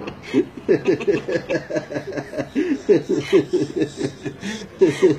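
Laughter in quick, repeated chuckles, about five a second, with a short break near the end.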